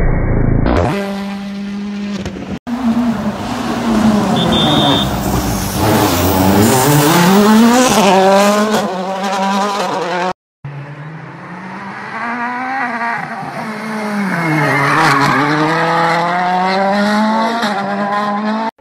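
World Rally Car turbocharged four-cylinder engines heard in a run of short clips of cars on a rally stage, revving hard with the engine note sweeping down and back up several times through the corners. The sound breaks off abruptly twice where one clip cuts to the next.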